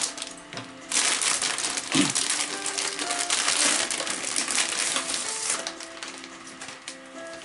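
Plastic packaging of frozen gyoza crinkling and rustling as the bag is torn open and the plastic tray handled, starting about a second in and thinning out after about five seconds. Soft background music plays underneath.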